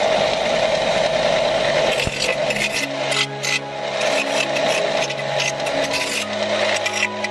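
Background music over a loud, steady hissing rush that starts abruptly at the beginning.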